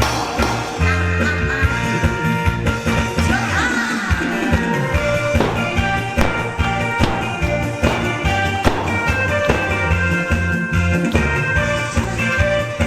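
Upbeat music with a pulsing bass line and a steady drum beat, with sustained instrument tones over it.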